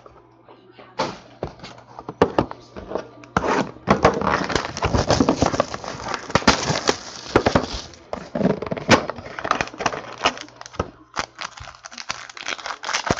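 Plastic wrapping crinkling and tearing as a sealed trading-card box and its pack are opened, with clicks and taps of the cardboard box being handled. The crackling is densest from about four to eight seconds in.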